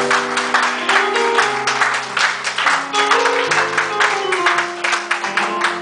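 Church praise band playing: held keyboard chords that shift every second or so over fast, even percussive hits.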